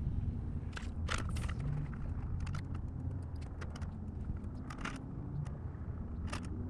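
Steady low rumble of wind on the microphone on an open boat, with scattered light clicks and a few sharper ticks and splashes.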